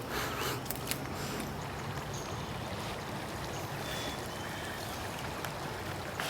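Steady rushing of a flowing stream, with a few faint high chirps over it.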